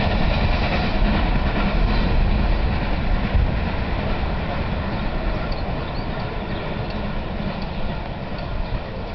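A train running past on the line, a heavy, steady rumble of wheels and running gear that slowly fades as it draws away, with a few faint light ticks in the second half.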